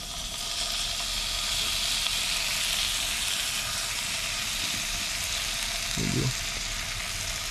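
A whole croaker frying in butter in a nonstick pan, with lime juice squeezed over it: a steady sizzle that grows a little louder over the first second or two.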